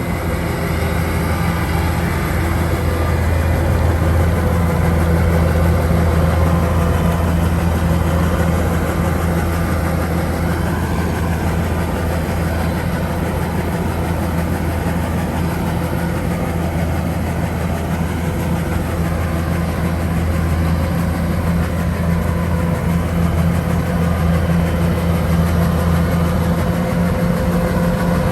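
Kubota DC-105X combine harvester's diesel engine running steadily, a constant low hum with machinery noise over it.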